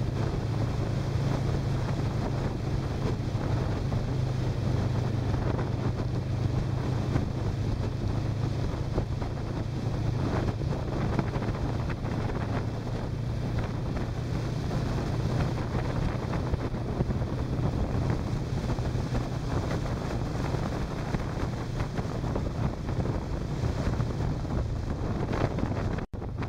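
Motorcycle riding at a steady speed: the engine's low, steady drone under heavy wind buffeting on the microphone. The sound cuts out for an instant near the end.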